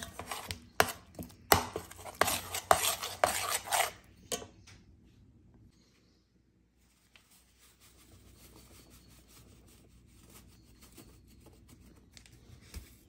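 Metal spoon stirring and scraping thick batter in an enamel bowl, with sharp clicks against the bowl, stopping about four seconds in. After that only faint rustling as corn flour is tipped in from its paper bag.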